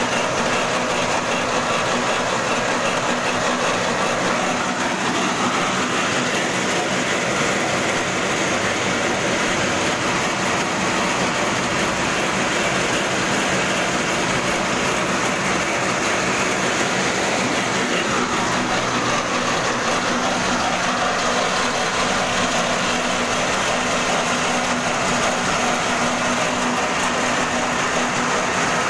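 Corn-cleaning machine running: a small petrol engine drives its mesh-screen sieve while dried corn kernels pour through and rattle down the chute into a sack. A steady, even mechanical din with a constant hum underneath.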